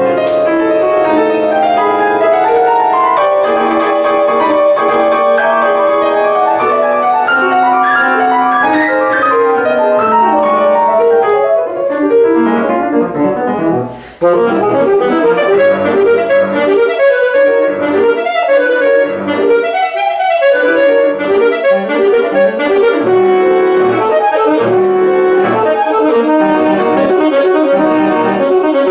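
Saxophone and Yamaha grand piano playing a classical duet: long held saxophone lines over piano chords. About halfway through, the music breaks off briefly, then resumes with quicker, shorter notes.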